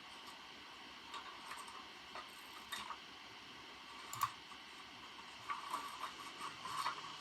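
Computer keyboard typing: soft, irregular keystrokes, sparse at first and quicker near the end, with one sharper key strike about four seconds in, over a faint steady room hiss.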